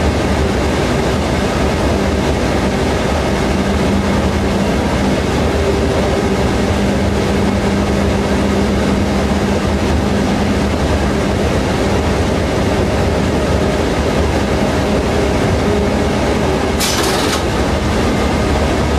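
Inside the cab of diesel passenger locomotive SDNX 2101 under way: the engine's steady drone mixed with train running noise. A short hiss cuts in near the end.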